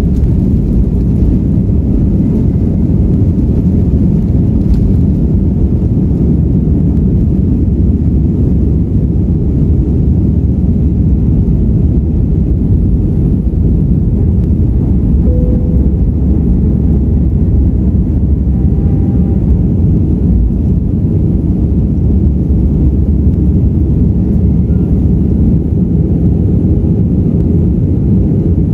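Airbus A320 jet heard from inside the cabin during takeoff: a loud, steady low rumble of the engines at takeoff power as the airliner runs down the runway, lifts off and climbs.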